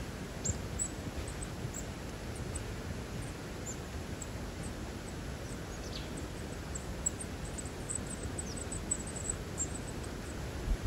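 Outdoor ambience in snowy woods: a steady low rumble with faint, short high-pitched ticks scattered through it, and one brief falling chirp about six seconds in.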